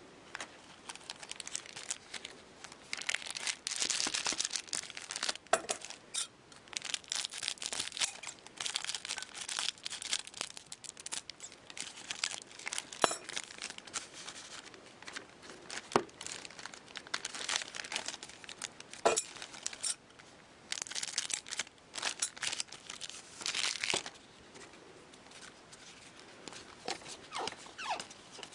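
Foil trading-card packs being torn open and crinkled by hand, with the cards inside slid and riffled through; irregular rustling in spells, with a few single sharp clicks.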